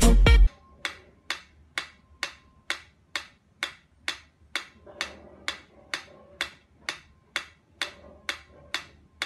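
Music cuts off about half a second in. Then a mechanical pyramid metronome ticks steadily, a little over two clicks a second.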